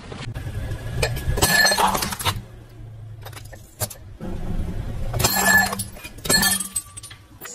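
Car engine running at low speed while its tyre rolls over and crushes objects, giving three bursts of crunching and clinking, the first about a second and a half in and two close together near the end.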